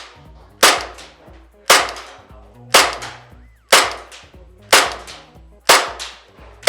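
ASG KWA M93R II gas blowback airsoft pistol on green gas firing single shots, about one a second: six sharp cracks, with a seventh at the very end.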